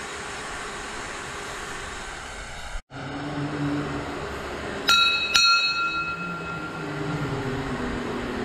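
Hanging temple bell struck twice, about half a second apart, about five seconds in, each strike ringing clearly and dying away over a second or so.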